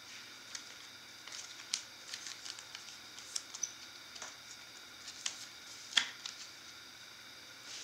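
Clear plastic card sleeve and holder being handled as a trading card is slid in: light plastic crinkles with scattered small clicks and taps, the sharpest about six seconds in.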